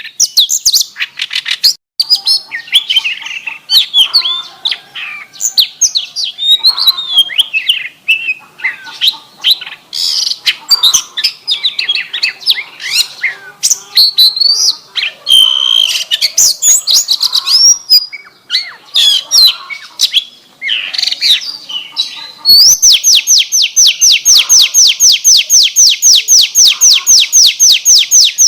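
Oriental magpie-robin (kacer) singing a loud, varied song of whistles, chatters and quick gliding notes, with canary-style phrases mixed in. From about 23 s in it switches to a long, rapid, even trill of repeated notes, about seven a second, like a canary roll.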